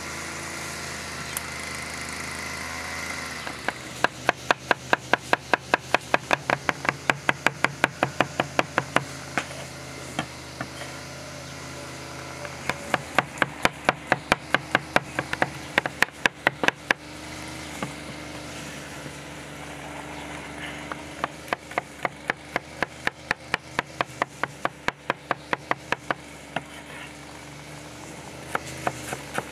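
Cleaver chopping garlic cloves on a wooden cutting board: three runs of quick, even knocks, about five a second, over a steady low hum.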